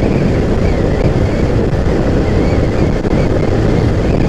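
Wind rushing over the microphone of a Yamaha MT-15 motorcycle riding at highway speed, with the bike's engine running steadily underneath.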